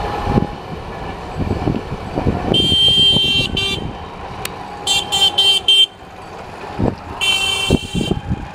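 WDM3A diesel locomotive's horn sounding in blasts: a long blast and a short one, then four quick short blasts, then another long blast near the end. Low, irregular clatter runs underneath, the sound of the train on the rails.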